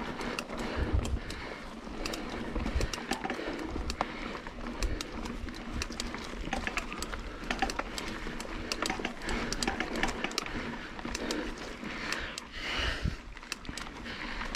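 Mountain bike ridden over a rough trail: tyres on dirt and rock with a steady run of small clicks and rattles from the bike, and a few low thumps about a second in.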